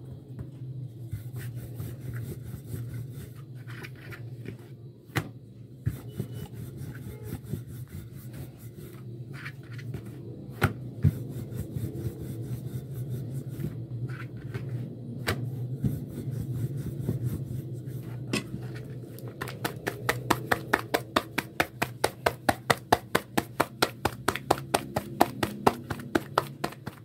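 Hands pressing and rubbing a flat round of paratha dough on a plastic sheet, with scattered light taps, then a quick run of regular pats, about four or five a second, near the end, over a steady low hum.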